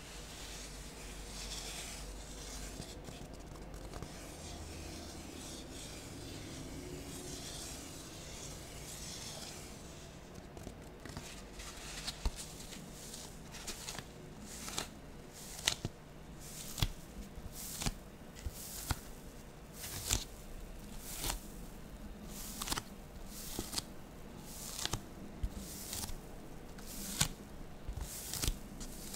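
Styrofoam handled close to the microphone: a steady rubbing for about the first ten seconds, then a run of sharp crackles as it is squeezed, roughly once a second.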